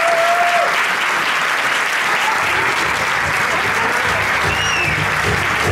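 Audience applause, steady throughout, with music and a low beat coming in underneath about halfway through.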